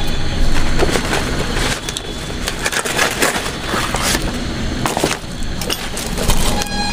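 Large fresh banana leaves being handled and folded around a bundle of food, crinkling and rustling irregularly with sharp crackles.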